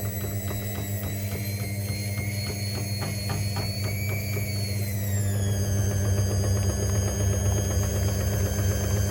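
Hoover H-Wash 300 washing machine motor whining as the drum spins over a steady low hum; the whine holds its pitch, then falls about five seconds in and settles lower as the drum slows.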